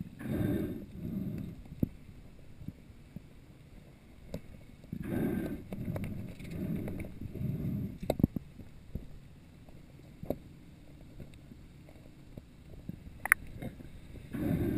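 Muffled underwater water noise from a swimming freediver, swishing and sloshing against a head-mounted GoPro dive housing in several pulses, with a few sharp clicks and knocks in between.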